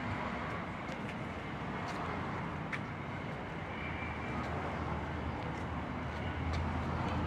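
Steady low outdoor rumble of vehicle traffic, with a few faint clicks.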